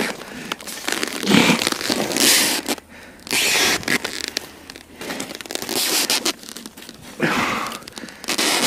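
Rustling and crunching handling noises in several short bouts: padded winter clothing and gloved hands working in a snow-and-ice fishing hole.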